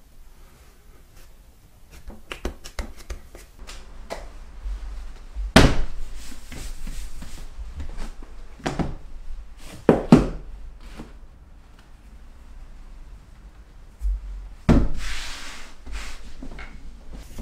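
Hand-made soba dough being handled: scattered soft knocks and clicks of hands and dough against a wooden kneading board, with a few sharp thuds, the loudest about five and ten seconds in. About fifteen seconds in comes a brief rustle as buckwheat flour is scattered over the board.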